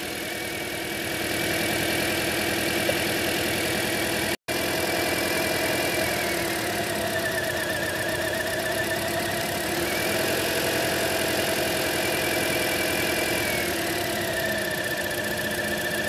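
2010 Toyota Corolla's 1.8-litre four-cylinder engine idling with a dead miss on cylinder 1 from a failed ignition coil, with a steady high whine over it. The engine note shifts a few times as another cylinder's ignition coil is unplugged with the engine running.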